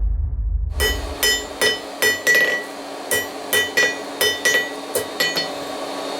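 Hand hammer striking hot steel on an anvil, about a dozen quick blows, each with a ringing tone, with a short pause midway: setting a forge weld on a bundle of 6 mm round bars.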